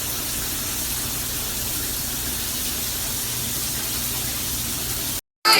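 Shower water spraying steadily, then cut off abruptly near the end.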